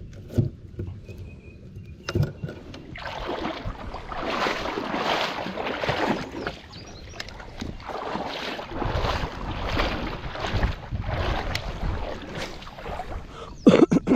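Kayak paddle strokes in the water: a rhythmic swish and splash about once a second, with a couple of sharp knocks before the paddling starts and a short loud sound near the end.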